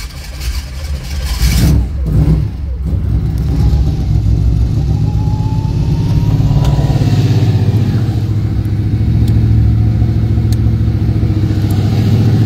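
Camaro Z28's V8 just after starting, revved briefly in the first couple of seconds and then settling into a steady idle through newly installed 2.5-inch exhaust piping and mufflers.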